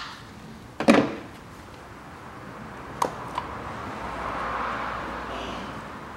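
Hand-tool clicks and knocks on a car engine's first-cylinder ignition coil as its bolt is undone, with a sharp knock about a second in. This is followed by a longer rubbing, scraping sound as the coil is worked up out of the spark plug well.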